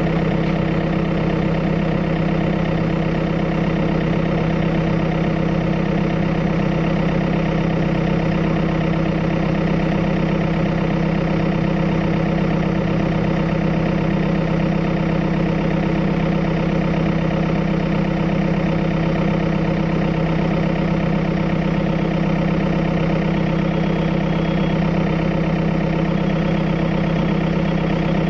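Excavator's diesel engine running at a steady speed, a constant drone with no rise or fall.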